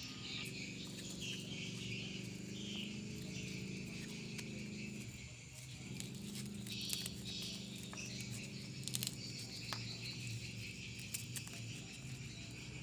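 The motor of an areca nut dehusking machine running with a steady hum. Its pitch sags briefly about five seconds in, then recovers. A high chirring and scattered light clicks sound over it.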